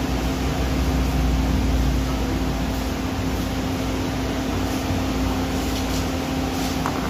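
Steady machine hum with one constant low tone under an even whirring noise, unchanging throughout.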